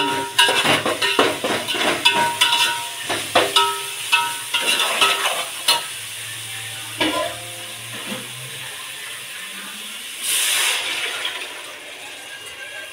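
A metal spoon stirring and knocking against a metal cooking pot, with rapid clanks that ring, over the sizzle of onion masala and whole spices frying in oil. The clanking stops about six seconds in, leaving a softer sizzle, with a brief louder hiss at about ten seconds.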